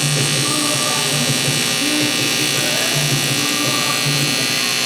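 TIG welding arc buzzing steadily as a bead is run, the AC arc crackling as it breaks up the white oxide on aluminium.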